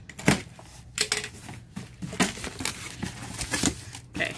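Cardboard handling: rustling, scraping and irregular knocks as a shipping carton's flaps are opened and the small boxes packed inside are handled, with one sharp knock near the start.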